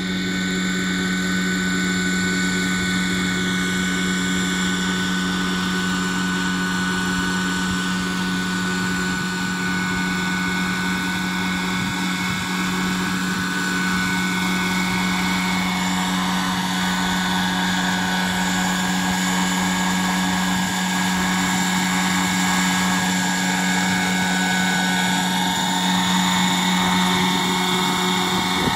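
Radio-controlled scale Bell 212 model helicopter hovering low, its engine and rotor giving a steady drone with a thin high whine above it.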